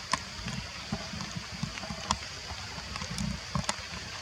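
Outdoor background noise: irregular low wind rumble on the microphone over a steady high hiss, with a few sharp clicks.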